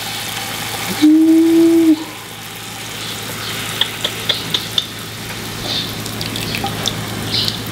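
Hot red wine reduction sauce sizzling as it is poured from the frying pan through a metal mesh strainer into a bowl, with a few light clicks around the middle. A loud, steady tone lasting about a second begins about a second in.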